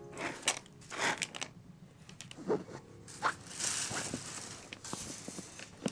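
Irregular crunching and scraping from cats at a green plastic tray, a handful of short crunches with a longer stretch of rustling in the middle.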